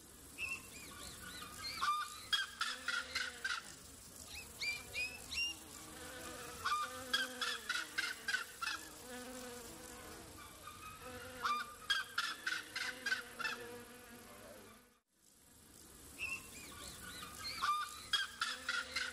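Jungle ambience: a bird calling in bouts of quick, repeated chirps with rising and falling notes, over a steady high insect hiss. The sound drops out for a moment after about fifteen seconds, then the calling resumes.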